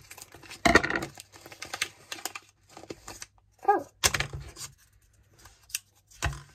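Small plastic wrapper of a miniature toy being cut with scissors and picked open by hand: irregular crinkling and sharp clicks, loudest about a second in, with a soft knock on the tabletop near the end.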